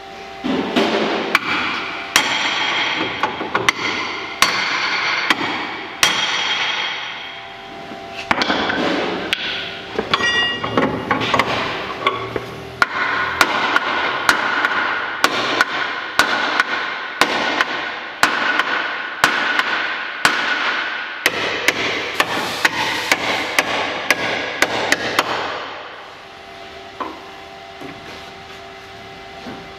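Hammer blows on the steel front frame rail of a crash-damaged BMW Z4, struck at an uneven pace of roughly one to two a second as the bent rail is worked straight. The blows stop about four seconds before the end.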